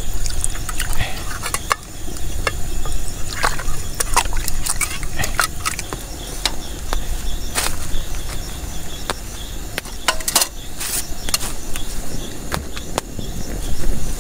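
Camp cooking sounds: liquid splashing and pouring, with scattered sharp clicks and knocks of utensils and pots, over a steady high chirring of insects.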